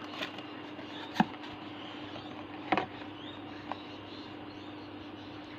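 Trading cards being handled and set down: four light clicks, the clearest a little after a second in and near three seconds, over a steady faint hum.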